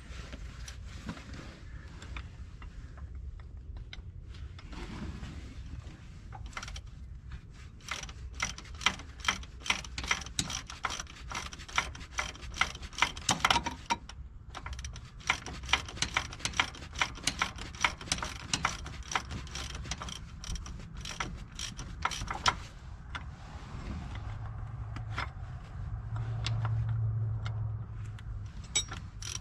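Hand ratchet wrench clicking in quick runs of strokes as a bolt is worked loose. A low hum swells near the end.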